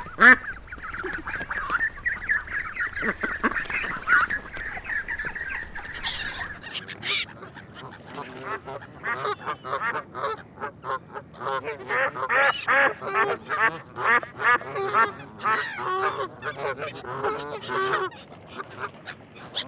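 A flock of ducks quacking: many overlapping short calls, sparse and steady at first, then after a cut about six and a half seconds in a dense run of loud, rapid quacks.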